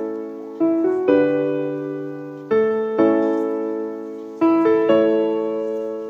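Background piano music: slow chords, each struck and left to ring and fade, a new one coming every second or two.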